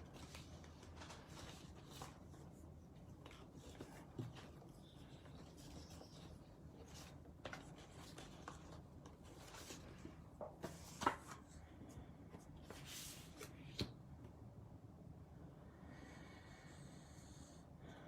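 Faint handling of stamps and card on a craft table: light rubbing and rustling with a few small taps and clicks, the sharpest about eleven seconds in.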